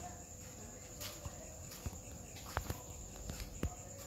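Crickets chirping in a steady high trill, with a few short sharp clicks spread through.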